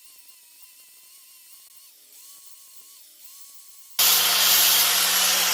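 Angle grinder starting abruptly about four seconds in and grinding into a hardwood knife handle, loud and harsh. Before it, only a faint wavering high whine.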